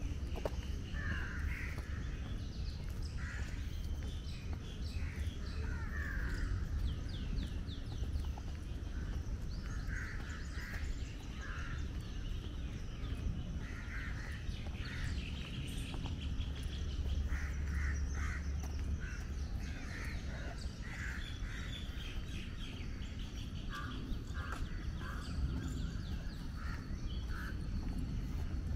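Several birds calling and chirping, with many short, varied calls and a few quick trills, over a steady low rumble.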